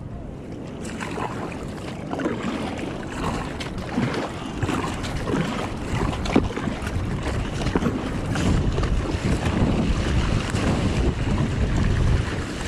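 Wind buffeting the microphone over water sloshing and splashing against a kayak's hull and paddle blades as it is paddled through choppy water, growing louder in the last few seconds as it reaches broken surf.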